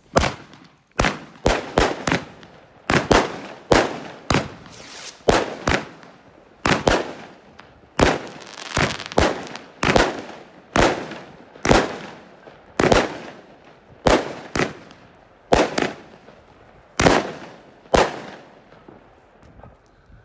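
Pangu 'Twister' 128-gram, 16-shot firework cake firing: a rapid, irregular string of about thirty sharp bangs, each with a short echoing tail, made up of the tubes launching and the shells bursting overhead. The shots stop about eighteen seconds in.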